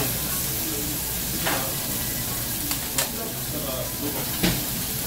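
Lamb and vegetables sizzling on a hot domed cast-iron Genghis Khan (jingisukan) grill, with metal tongs clicking against the grill three times as the meat is turned.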